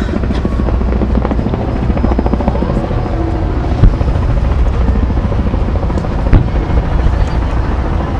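Aerial fireworks shells bursting: two sharp bangs, about four and six seconds in, over a continuous low rumble.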